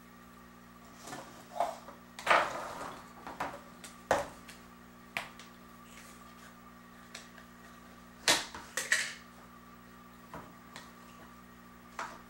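Hands kneading and rolling Play-Doh at a table: scattered short rustles and knocks, the loudest about two seconds in and again about eight seconds in, over a steady low hum.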